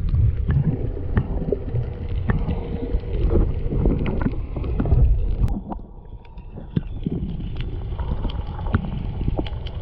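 Muffled underwater sound picked up by a camera just below a kayak hull: a low rushing of water with scattered sharp clicks and knocks. It dips quieter about six seconds in.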